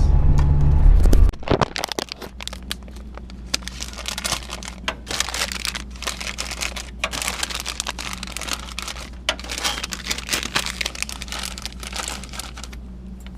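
Low in-car road rumble for about a second, then an abrupt change to irregular crinkling and rustling handling noise over a steady low hum.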